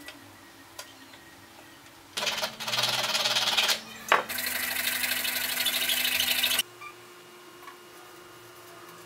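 Cordless drill motor running at speed in two bursts, the first about a second and a half and the second about two seconds, with a click between them; the second stops abruptly.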